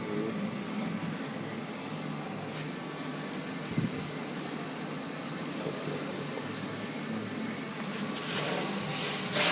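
Kamach 1290 CO2 laser cutting machine running during cutting: a steady hiss, with a short knock about four seconds in and a few louder brief surges near the end.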